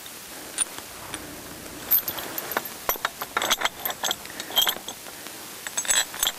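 Steel chain links and metal fittings clinking and knocking as a chain winch-tensor block is fitted to the base of a Hi-Lift jack: a run of sharp metallic clinks starting about two seconds in.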